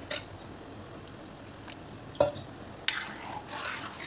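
Metal spoon stirring a thin curd-and-potato curry in a metal kadai, scraping and knocking against the pan, with sharp clinks about two and three seconds in. The curry is being stirred continually until it comes to the boil.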